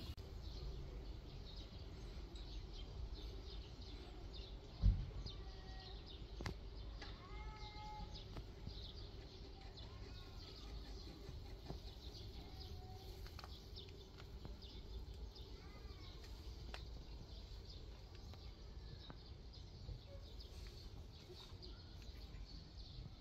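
Faint outdoor ambience: scattered distant bird chirps over a steady low rumble, with a single dull thump about five seconds in.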